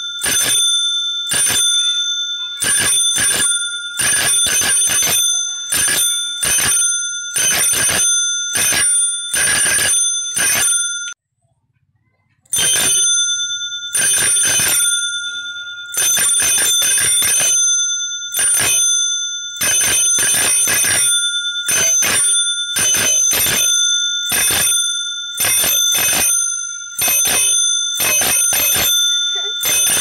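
Chrome dome bicycle bell on a handlebar, rung over and over with its thumb lever: loud, bright metallic rings, about one to two a second and sometimes in quick pairs, with one short silent pause about eleven seconds in.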